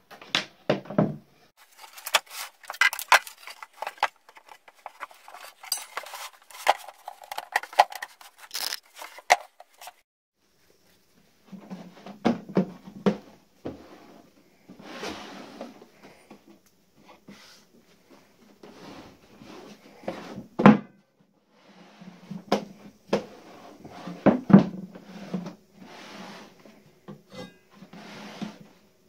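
A plywood saw box with a circular saw blade and motor inside being handled, tipped and set down: repeated knocks, clunks and rattles of wood and metal, with two sharp knocks in the second half.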